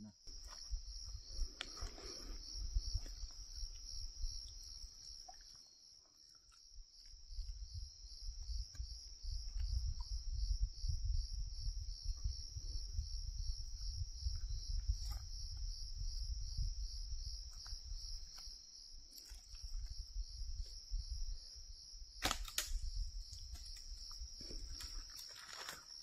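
A chorus of crickets keeps up a steady, fast-pulsing high trill. A low rumble of microphone handling runs under it through most of the middle, and there is a sharp click about three-quarters of the way through.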